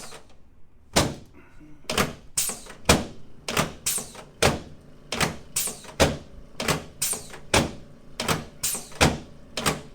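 A quick, somewhat uneven series of sharp knocks, roughly two a second, beginning about a second in.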